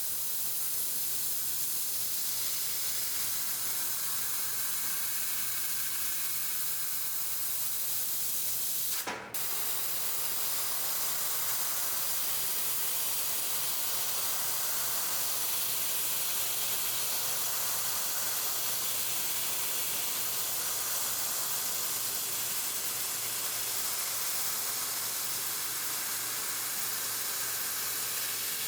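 2000 W fiber laser cutting machine cutting metal, its assist gas hissing steadily from the cutting head nozzle over a low machine hum. The hiss breaks off for a moment about nine seconds in and resumes.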